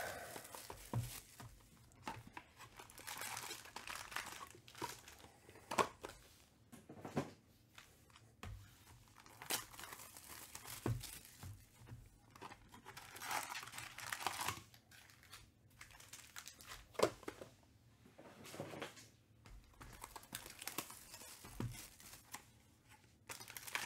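2021 Panini Contenders Baseball card-pack wrappers being torn open and crinkled by hand, in scattered irregular bursts with small clicks and taps of handling.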